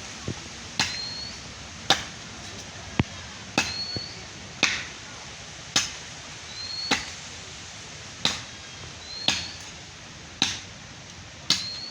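A hand-held blade chopping into a tree branch: about ten even strokes, roughly one a second, each a sharp knock, some with a short high ring after the blow.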